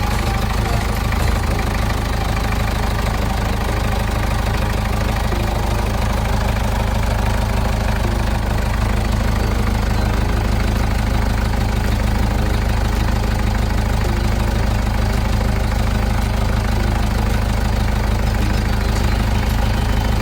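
Mitsubishi 4D33 four-cylinder diesel engine idling steadily on a test run after a new rear crankshaft oil seal was fitted, with the oil leak cured.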